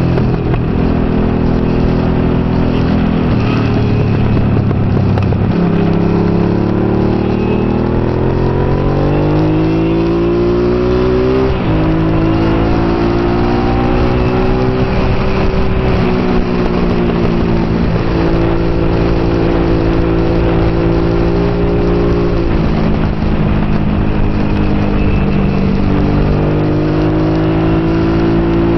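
Honda Hawk GT's 650 cc V-twin engine under race power, heard from the bike itself. Its note climbs for several seconds at a time, then steps abruptly at gear changes, several times over. Steady wind rush is heard underneath.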